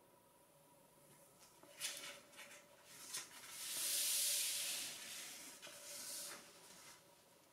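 Sheets of 15 cm origami paper being handled on a tabletop: a few light rustles and taps, then a longer swishing slide of paper across the table about four seconds in, and a couple more rustles after it.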